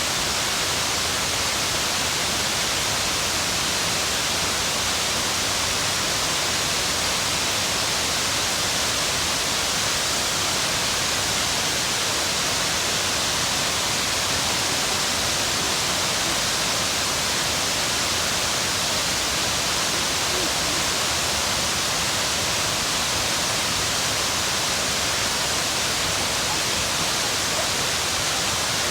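Steady, even rush of falling water from Shiraito Falls, a wide curtain of many thin cascades pouring down a cliff face.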